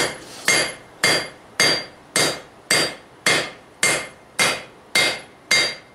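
Four-pound hammer striking red-hot steel on an anvil in a steady rhythm of about two blows a second, each blow ringing briefly. This is the steel being drawn down and spread in width for a froe blade.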